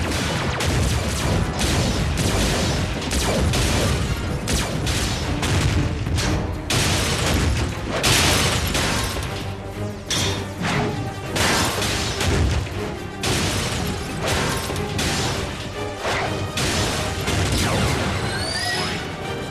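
Action music over cartoon combat sound effects: repeated booms, crashes and metallic impacts of robots fighting, with a few short rising whines near the end.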